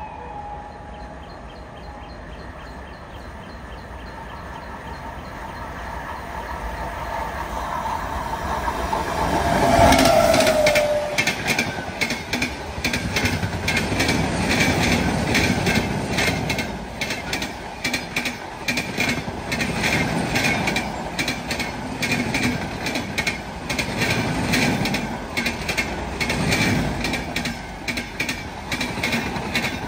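Express passenger train running through at speed behind an electric locomotive: a rising rumble, peaking with a brief falling tone as the locomotive passes about ten seconds in. Then the coaches rush past with a rapid, even clickety-clack of wheels over rail joints.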